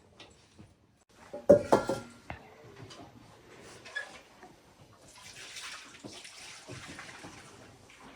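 A short clatter of knocks, then from about halfway through a steady rush of running or pouring water.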